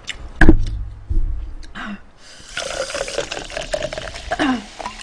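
Cola poured from a plastic bottle into a cup, a steady splashing fill from about two and a half seconds in. A loud knock comes about half a second in.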